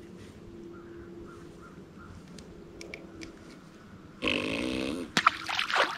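A loud, low grunt-like vocal sound of about a second comes about four seconds in, after a stretch of faint steady hum, followed by a few sharp clicks and a short rough sound near the end.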